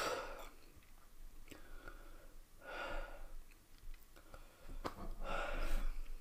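A man breathing out heavily three times, each breath a short noisy puff, with a few faint mouth clicks between them.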